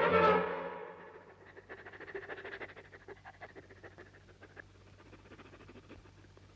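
Violin music dies away in the first second, then a dog pants and sniffs in quick, short breaths, with a sharp click at the very end.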